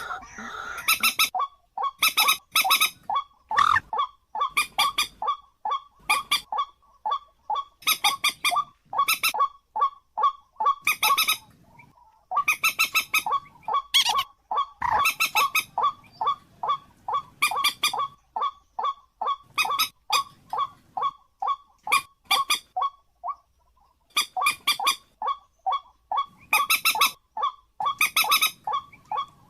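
A bird calling in rapid series of short repeated notes, several a second, in bouts separated by brief pauses.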